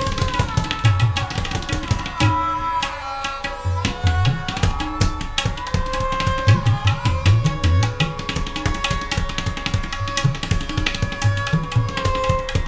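Music: a busy percussion pattern with deep pitched drum hits under a melody line that slides up and down in pitch.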